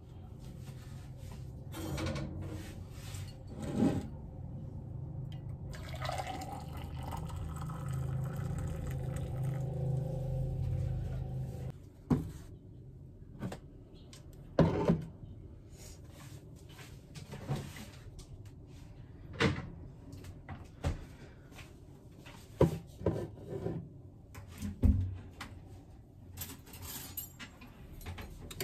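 Water running into a ceramic mug for several seconds, stopping abruptly about twelve seconds in. Then a series of short knocks and clinks as jars are set down on a countertop.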